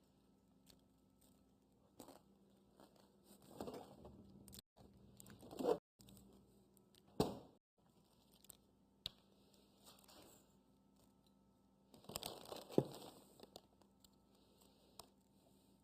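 Scattered crinkling, tearing and light knocks of food packaging and kitchen things being handled during cooking, with a few sharp clicks and a faint steady hum underneath.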